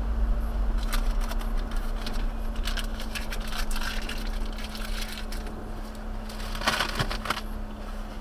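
Low steady rumble of a vehicle with a faint even hum, broken by irregular crackling or rustling about a second in, again for a second or so midway, and near the end.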